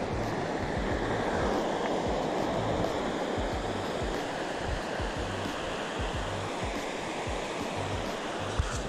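Steady rushing noise of riding on a mountain bike, with wind buffeting the action camera's microphone in low irregular thumps, and a single sharp knock near the end.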